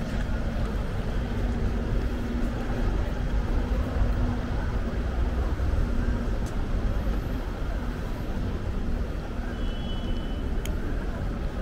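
City street traffic noise: a steady rumble of passing vehicles with a low engine hum.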